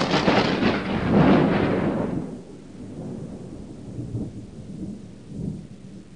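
Thunder: a loud crash lasting about two seconds, then dying down into a low rumble.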